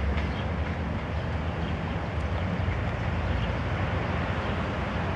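CFR Class 65 GM diesel locomotive's engine running with a steady low drone as the train pulls away.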